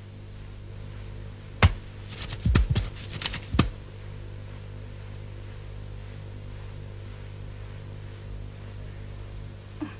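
Metal spoon clinking against a steel plate: one sharp clink, then a quick run of clinks between about two and three and a half seconds in, over a steady low hum.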